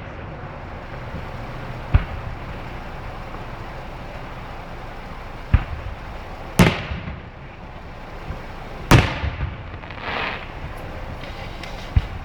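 Fireworks bursting overhead: five separate bangs a second to a few seconds apart, the two loudest past the middle, each trailing off in a fading echo.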